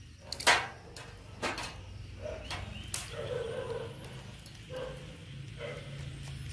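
Metal grill tongs clacking against the wire grill rack and corn cobs: a few sharp clicks, the loudest about half a second in. Several short squeaks follow.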